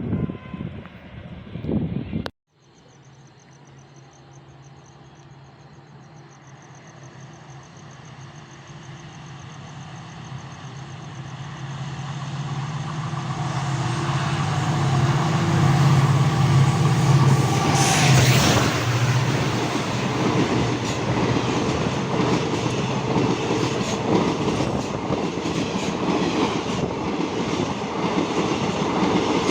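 A train approaching and passing at speed: after an abrupt cut about two seconds in, a low steady hum from the locomotive swells over about fifteen seconds, then the coaches rush by with a rapid clatter of wheels over the rail joints.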